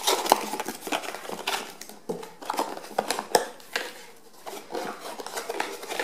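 Hands handling cardboard packaging as a small box insert is opened and its card flaps pulled apart: scraping and a dense run of sharp clicks and taps.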